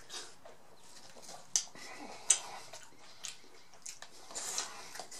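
Close-miked chewing of a mouthful of fried tortilla taco shell and filling: irregular wet, crackly mouth sounds, with two sharp clicks about a second and a half and two and a half seconds in.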